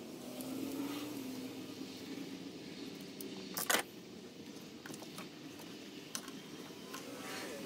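Rubber PCV hoses being worked by hand onto their engine ports: rubber rubbing and shifting with scattered small clicks, the loudest a sharp click about three and a half seconds in.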